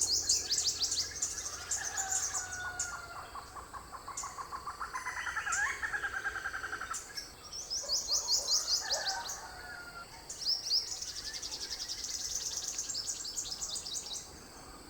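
Purple sunbird male calling: several runs of rapid, high-pitched trilled notes, each lasting one to three seconds, with another bird singing lower underneath.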